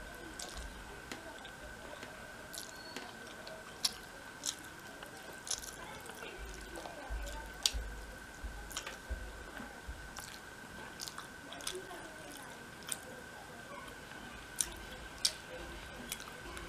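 A person chewing mouthfuls of rice and fish curry eaten by hand: soft wet mouth sounds with small, sharp clicks scattered throughout, and a few low bumps around the middle. A faint steady high-pitched hum runs underneath.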